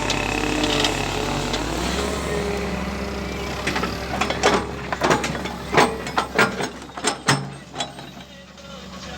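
Machinery running with a steady hum, then a quick series of sharp metallic clicks and clanks from about four seconds in, easing off near the end.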